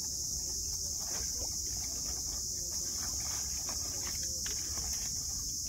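Steady high-pitched insect chirring throughout, with scattered light clicks and knocks from handling the catch in a wooden boat.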